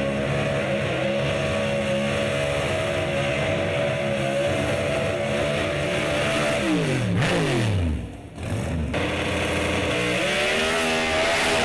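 Drag racing car engine at full throttle, holding a high steady note, then falling steeply in pitch about seven seconds in. After a brief dip, an engine note rises again and holds high near the end.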